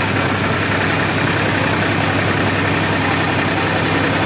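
Diesel tractor engine running steadily under load, driving a potato harvester, with a constant low hum and the clatter of the digging machinery.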